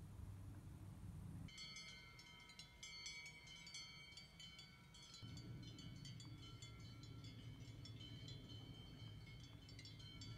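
Faint small metal bells tinkling irregularly, many overlapping strikes with lingering ringing tones, beginning about a second and a half in. A low rumble sits underneath.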